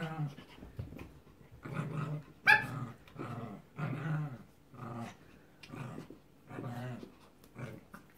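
Small dogs play-fighting, one growling in a run of short growls about once a second, with one louder, sharper one about two and a half seconds in.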